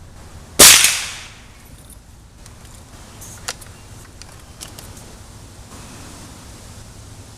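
A single sharp, loud shot from a Gamo Socom Extreme .177 break-barrel air rifle just under a second in, with a short ringing tail, followed by a few faint clicks a couple of seconds later.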